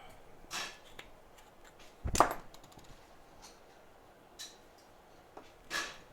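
Small hand tools being handled and set down on a repair bench: a few short clicks and clacks, the loudest a sharp knock about two seconds in.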